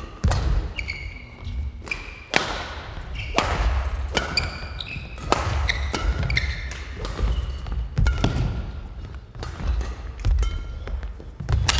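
Badminton rally: sharp racket strikes on the shuttlecock about once a second, ringing in the large hall. Between them come short high squeaks of court shoes on the floor and thudding footsteps.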